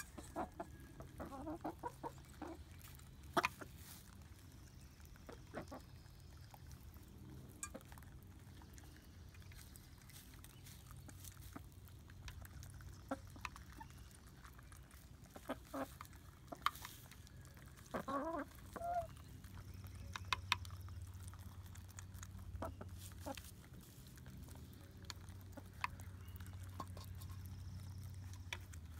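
Hens pecking at yogurt and feed in a plastic dish: scattered sharp taps of beaks on the dish, with soft clucks now and then and a short run of louder clucks about eighteen seconds in.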